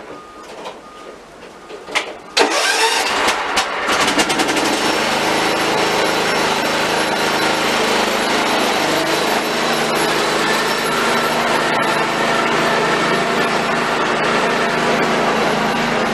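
Riding lawn mower's small gasoline engine cranked by its electric starter on a freshly charged battery: it catches after about a second and a half of cranking and settles into steady running. A few light clicks come before the starter engages.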